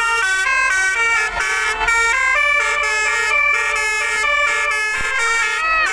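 Basuri multi-tone 'telolet' bus horn playing a quick melody, its notes changing about four times a second with several tones sounding together.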